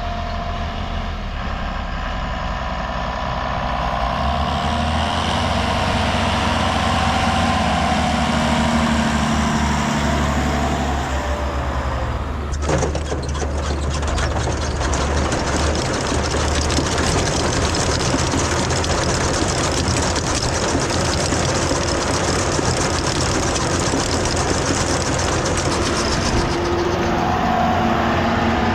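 Heavy diesel tractor engines running, with the pitch rising and falling as they work. About halfway through a loud rushing noise sets in and stays.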